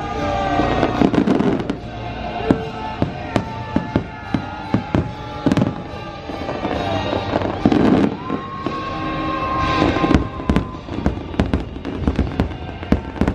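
Fireworks salute going off in rapid succession: many sharp bangs and pops close together, with the show's music of American composers playing underneath.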